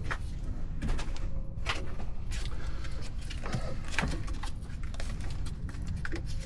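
Scattered light clicks and knocks of hand tools and metal and plastic parts being handled under the hood, over a steady low hum.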